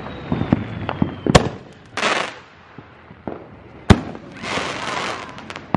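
Fireworks going off: two sharp bangs about two and a half seconds apart, the second the loudest, each followed by a short hissing crackle, with fainter pops around them.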